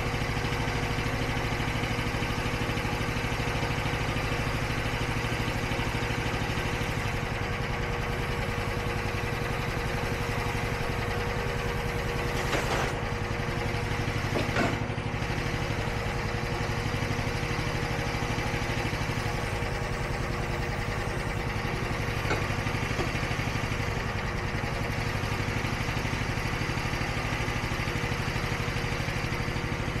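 Huayee SHY360 mini skid steer's engine running steadily with a steady whine while the bucket loaded with 400 lb of rock bags is lowered. There are two sharp knocks about 13 and 15 seconds in.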